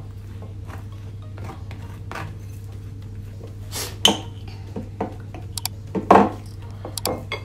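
Table knife scraping spread across a toasted crumpet, with scattered clinks of the knife against the plate and the spread jar; the sharpest clinks come about four and six seconds in.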